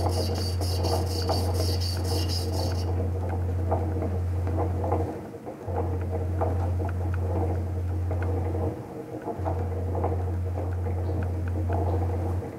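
A loud, steady low hum that drops out briefly twice, about five and about nine seconds in. A fast, even high-pitched chirping at about four pulses a second runs over it and stops about three seconds in.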